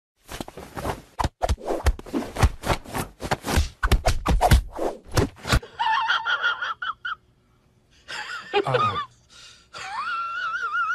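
Quick, irregular pats of a hand slapping a cat's belly for about five and a half seconds. Then a woman's high-pitched, wavering squeals in short spells, one sliding down in pitch.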